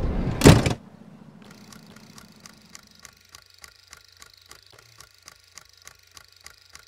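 A loud sudden sound in the first second cuts off, leaving a faint electrical hum and hiss. Over it runs a regular mechanical clicking, about three clicks a second: the sound laid over the playback of black-and-white security-camera footage.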